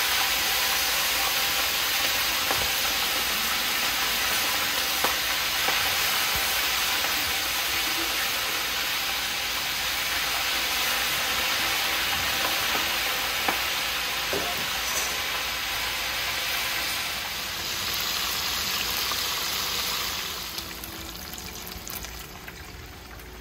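Blue crab pieces deep-frying in hot oil in a cast-iron pot: a steady, loud sizzle with a few light clicks. The sizzle grows quieter near the end.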